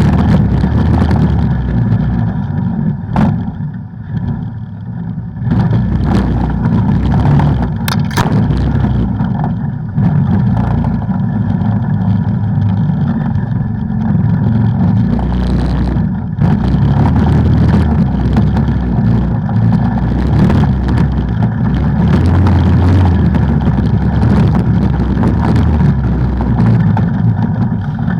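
An ATV engine running on the move over a trail, with heavy wind rumble on the microphone. Sharp knocks come about three seconds in and again about eight seconds in.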